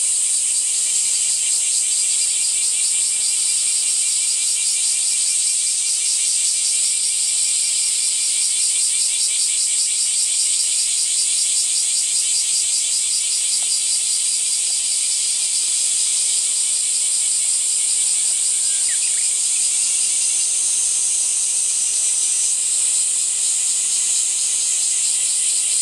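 Steady chorus of insects shrilling: a high continuous hiss with a fast, even pulsing rhythm beneath it.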